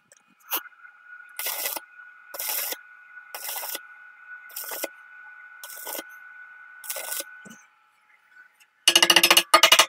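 Stick (MMA) arc welding on steel: the arc crackles in six short bursts of about half a second each, about a second apart, over a steady high whine. Near the end comes a much louder burst of rapid metallic knocking.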